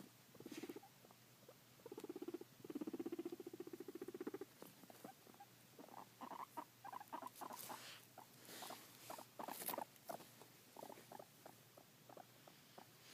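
Guinea pig making its happy sounds: a few low, rapidly pulsing buzzes in the first seconds, then a quick run of short chirps and clicks. This is the sound of a contented, happy guinea pig.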